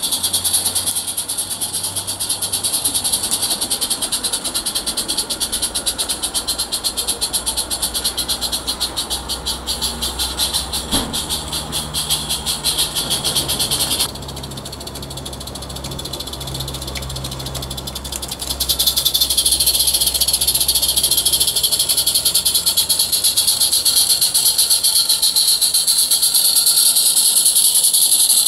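Roundhouse Dylan live steam model locomotive running, its exhaust a fast, even stream of hissing chuffs. It drops back for a few seconds about halfway in, then comes back louder.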